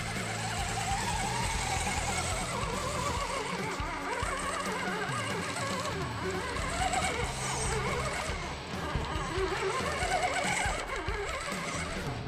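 Background music: a soundtrack with held low notes and a wavering pitched line running over them.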